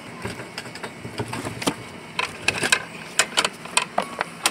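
Plastic fuel-line quick-connector being worked off the fuel pump flange: a run of sharp, irregular clicks and snaps, most of them in the second half.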